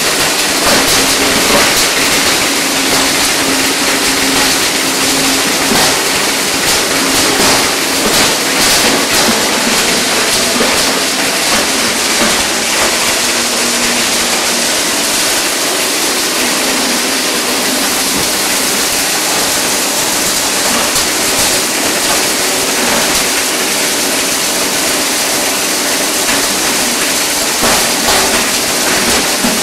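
A UPVC pipe grinder, belt-driven by a 20 HP three-phase electric motor, running loud and steady with a dense rushing clatter. A rapid crackle of small knocks runs through about the first twelve seconds as the plastic is ground.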